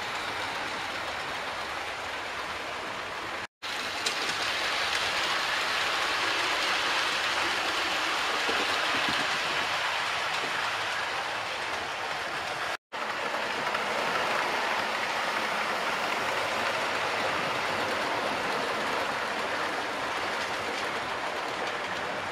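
Model train running on the layout's track: a steady rolling hiss of wheels on rails, broken twice by brief cuts to silence, about three and a half and thirteen seconds in.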